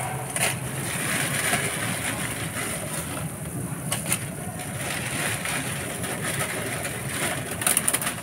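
Dark sauce boiling in a frying pan, a steady bubbling, as dried pancit bato noodles are dropped into it, with a few light clicks.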